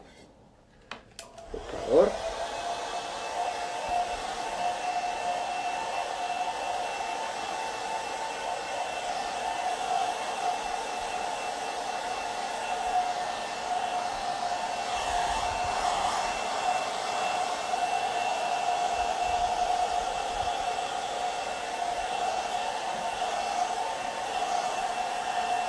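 Handheld hair dryer switched on about two seconds in, after two clicks. Its whine quickly rises to speed, then it runs steadily with a whine over the rush of air.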